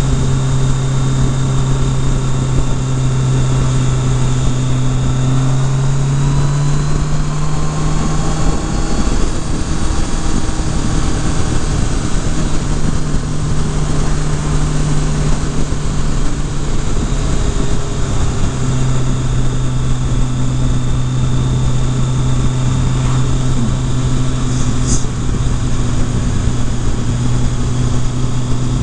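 Kawasaki Concours ZG1000's inline-four engine running at a steady cruise under wind noise, its note rising slightly around six seconds in and easing back a few seconds later.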